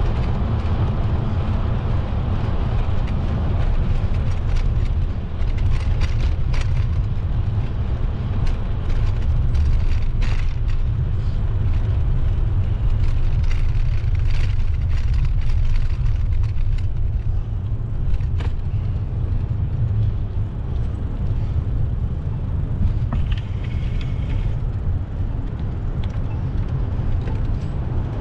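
Wind rumbling over the microphone of a camera carried on a moving bicycle, a steady low noise, with faint street traffic and a few light clicks.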